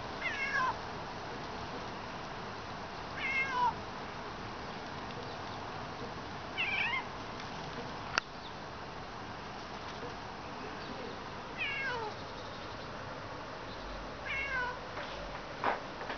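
Eurasian jay mimicking a cat's meow: five meow calls a few seconds apart, each falling in pitch. A single sharp click about halfway through.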